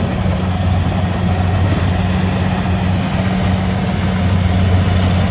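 Kubota DC-70 rice combine harvester's diesel engine running steadily as the machine cuts rice, a constant low hum over a noisy mechanical rush.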